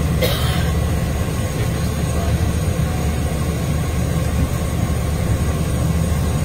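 Steady low drone of a high-wing light aircraft's engine and cabin noise, heard from inside the cabin while the plane taxis after landing.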